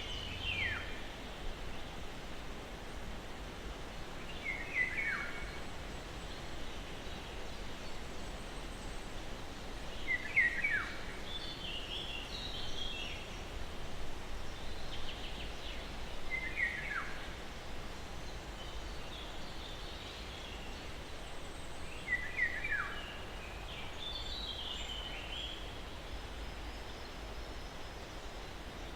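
Birdsong over a steady breeze: one bird repeats a short, quick phrase that falls in pitch, about every six seconds, and other birds chirp higher in between. A soft, even wind hiss runs underneath.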